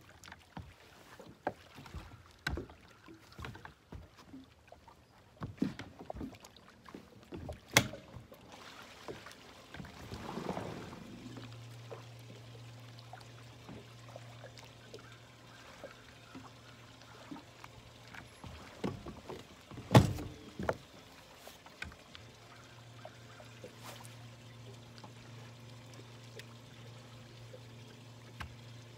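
Bass boat's bow-mounted electric trolling motor humming steadily, starting about a third of the way in, stopping for a couple of seconds and starting again. Scattered knocks and clicks on the boat deck come early on, and one sharp thump, the loudest sound, comes where the hum pauses.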